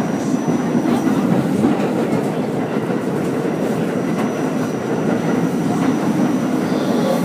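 Staten Island Railway R44 subway car running on the line, a steady rumble of wheels on rail. A faint thin high tone comes and goes over it.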